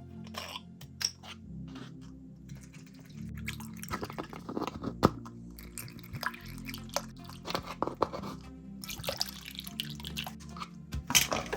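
Quiet background music with a scatter of small, sharp clicks and taps over it; the sharpest click comes about five seconds in.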